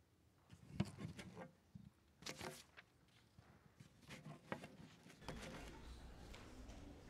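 Faint scattered footsteps, rustles and distant voices from people moving about and shaking hands; a low steady hum comes in about five seconds in.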